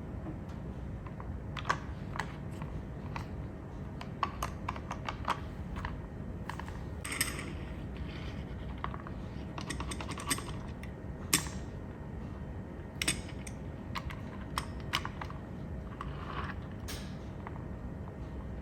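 Irregular light clicks and clacks, some in quick clusters, over a steady low rumble.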